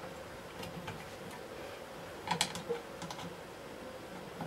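Scattered light clicks and taps of the plastic motor-housing halves of a Hoover Junior vacuum cleaner being handled and fitted together, a few in quick clusters, over a faint steady hum.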